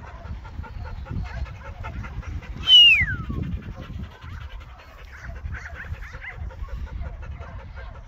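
A loud whistle that glides down in pitch about three seconds in, a handler's command whistle to a working kelpie. Wind rumbles on the phone's microphone throughout.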